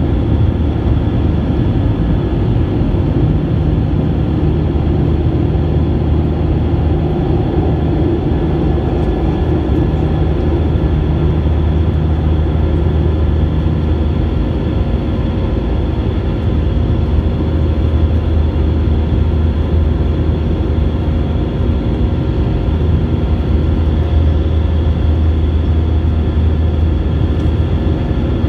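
Cabin noise of an Airbus A320 in its climb after takeoff: the steady, loud drone of the engines and rushing air, with a low hum underneath.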